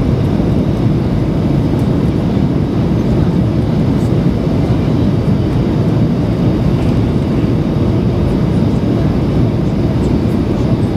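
Steady cabin noise of a Boeing 737-800 in flight: a constant low rumble of jet engines and airflow heard from inside the passenger cabin.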